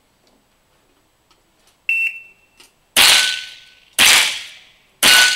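A shot-timer beep about two seconds in, then three shots from a lever-action rimfire rifle about a second apart, the later ones followed by the ring of a steel plate being hit.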